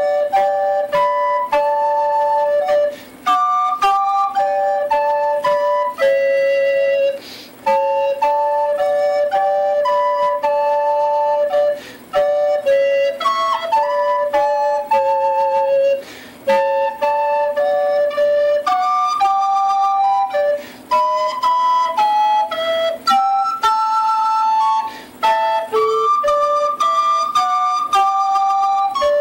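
Instrumental music: flute-like tones playing two melody lines together in harmony, in phrases with short breaks between them.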